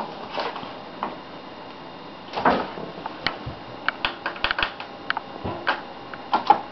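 Irregular light clicks and taps, a dozen or so, with one louder knock a little before the middle and a quick run of clicks just after it.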